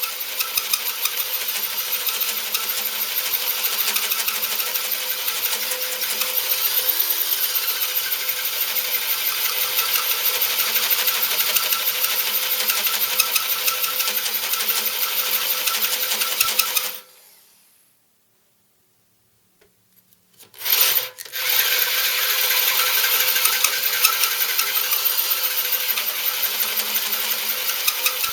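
Hole saw with a pilot drill cutting a 1 7/8-inch hole through a cast iron mill base: a loud, steady grinding chatter with rapid ticks. It stops about 17 seconds in, falls quiet for a few seconds, then starts again with a short burst and runs on.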